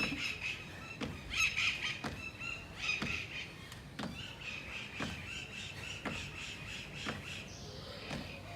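Repeated jump landings thudding on the floor about once a second, with high squeaking, likely shoes on the floor, between them.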